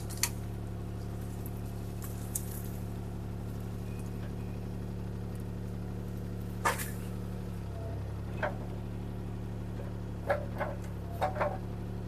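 CAT 303C CR mini excavator's diesel engine running steadily as it works the arm and bucket against a broken tree trunk, with a few sharp cracks and knocks, several close together near the end.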